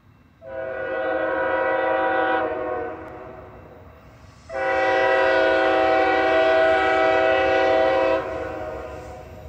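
An approaching CSX freight locomotive's air horn sounds two blasts, each a chord of several steady tones. The first lasts about two seconds from half a second in; the second is longer, from about four and a half to eight seconds. A low, steady rumble of the train underlies it.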